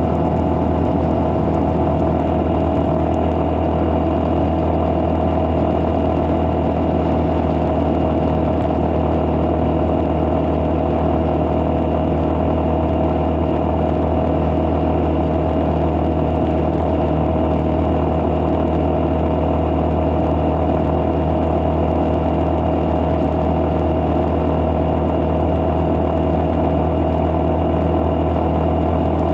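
Engine of a moving road vehicle running steadily at an even cruising speed: a continuous hum with no change in pitch.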